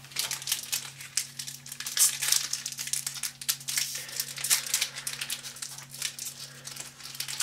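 Magic: The Gathering booster pack's foil wrapper crinkling and crackling in the hands as it is worked open, a quick irregular run of crackles throughout. A steady low hum runs underneath.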